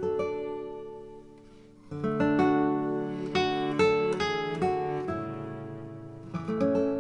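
Background acoustic guitar music: plucked notes and strums that ring out, quieter in the first couple of seconds, then fuller and louder.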